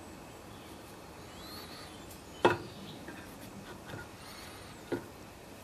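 Two light clicks, about two and a half seconds apart, as a Briggs and Stratton primer carburetor is set down and lined up on its new gasket and diaphragm on the mower's fuel tank. The first click is the louder; between them is quiet room tone.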